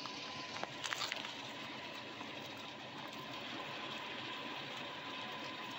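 Faint, steady rushing background noise with a thin steady tone, and a few light clicks about a second in.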